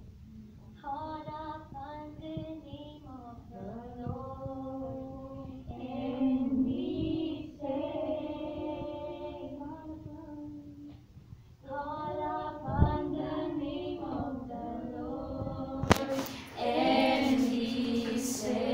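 A small group of female voices singing a slow worship song together in long, held phrases, with a short pause about two-thirds of the way through. Near the end a sudden, louder rush of noise comes in over the singing.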